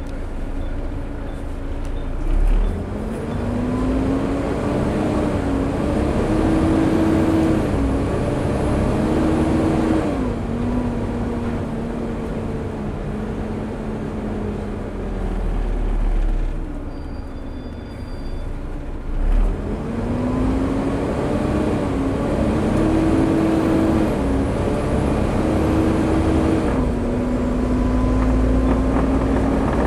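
Volvo B7TL double-decker bus's straight-six diesel and cooling fan pulling hard twice through the ZF Ecomat automatic's gears, the pitch rising and dropping back at each upshift, with the engine easing off in between. The fan roars in step with the gears. A thump comes as each pull begins.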